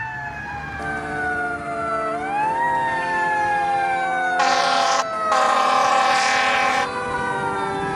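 Fire engine approaching with its siren wailing, the pitch sliding slowly down and rising once about two seconds in. Two loud horn blasts sound in the second half, the second one longer.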